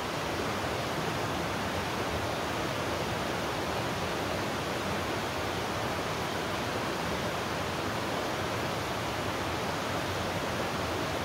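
Steady rushing noise with no pitch or rhythm, even and unchanging throughout.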